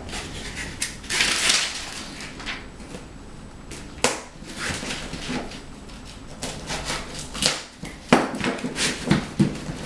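Hands working a self-adhesive foam edge strip onto a plywood subfloor: a rasping scrape about a second in, then rustling and handling noise with a few sharp light knocks, the clearest about four and eight seconds in.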